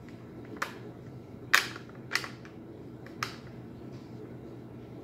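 Sharp metallic clicks of Rock Island VR-60 12-gauge shotgun parts being worked together by hand during reassembly. There are four clicks, the loudest about a second and a half in.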